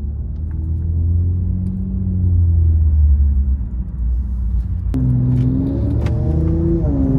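Infiniti Q50 engine running under way, with a heavy low rumble heard from inside the car. The engine note shifts abruptly about five seconds in.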